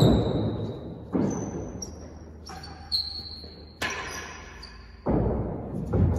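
Real tennis rally: the ball struck by racquets and bouncing off the floor and walls, about six sharp hits roughly a second apart, each echoing through the court.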